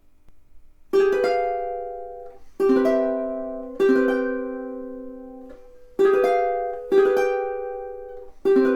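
Millar all-solid koa jumbo tenor ukulele strummed: six chords, starting about a second in, each left to ring out and fade before the next, with the chords changing along the way.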